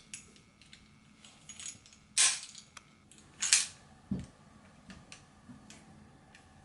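Steel parts of a 1911 pistol clicking and clacking as it is handled during reassembly: light clicks, then two sharp metallic clacks about a second and a half apart, followed by a duller knock.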